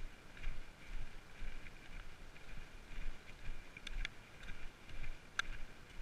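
Footsteps of a hiker walking at a steady pace on a dirt forest path, about two steps a second, with a few sharp clicks a little past the middle.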